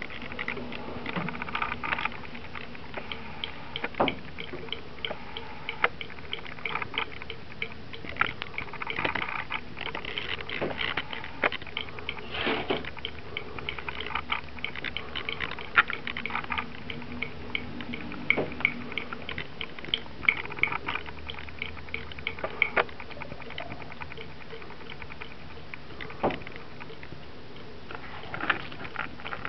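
A thin trickle of water running from a bathroom tap into a sink, with many small, irregular splashes and taps as a cat paws at it and laps from it.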